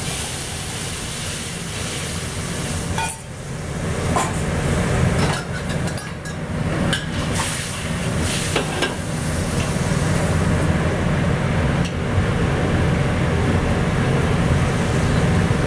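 Sauce hissing and sizzling as it hits a hot steel wok, then bubbling while a metal ladle stirs it, scraping and clacking against the wok several times in the middle. A steady low rumble runs underneath.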